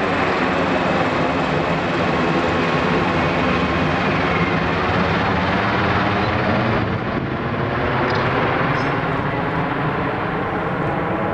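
Bell Boeing V-22 Osprey tiltrotor flying overhead in helicopter mode, its two proprotors and turboshaft engines making a steady, loud rotor drone with a fast low beat.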